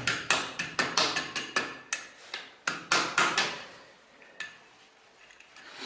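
Light metal taps and clicks, roughly three a second, from a cast-iron stove cleanout door and its wire tie being handled and tapped into the brick joint. They stop about three and a half seconds in, and one faint click follows.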